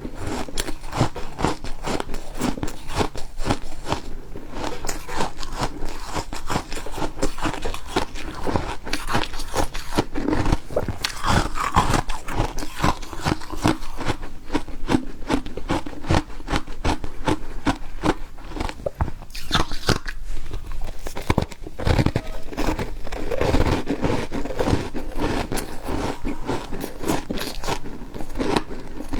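A person biting and chewing refrozen ice: continuous dense, irregular crunching.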